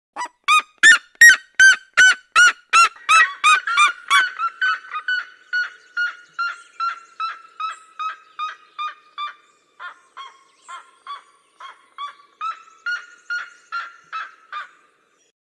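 Red-legged seriemas calling in duet: a long series of sharp, repeated notes, about three a second. The notes are loudest for the first four seconds, then a quieter run carries on until shortly before the end.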